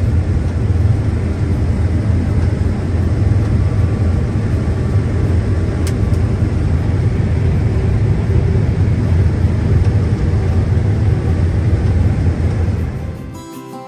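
Steady low rumble of a vehicle driving over rough ground, heard from inside. It gives way to acoustic guitar music just before the end.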